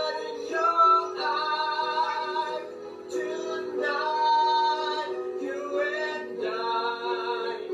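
Singing with music, playing from a television: long held notes that change every second or so.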